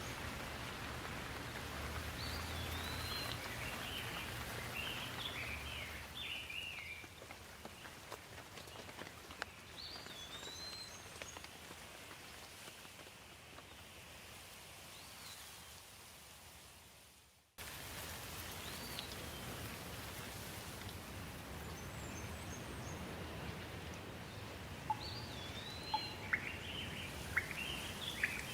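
Rain falling on leaves, a steady hiss, with birds chirping now and then and most often near the end. The rain fades away and then cuts back in abruptly a little over halfway through.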